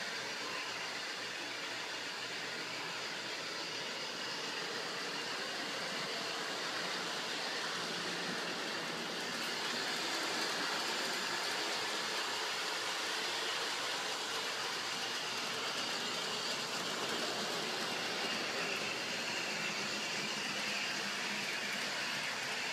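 Bachmann Big Haulers large-scale toy train running along its track: a steady whir of the electric motor with the wheels rolling on the rails.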